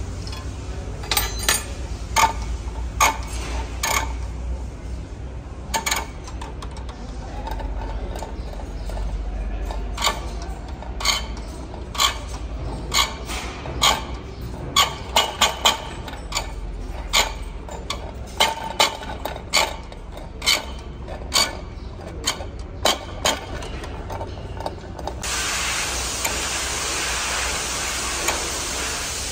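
Hand-lever diesel injector nozzle tester being pumped on a pump-line nozzle: a run of irregular sharp cracks as the nozzle pops open, quickest in a cluster around the middle. Near the end a steady hiss takes over.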